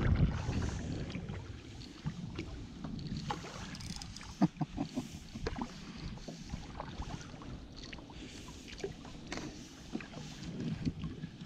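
Wind buffeting the microphone at first, then small water slaps and scattered light knocks against a kayak hull as it rocks on choppy water.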